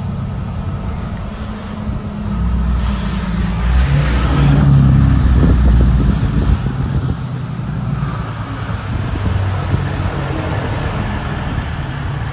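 A motor vehicle's engine passing close by, getting louder about two seconds in and fading after about six seconds.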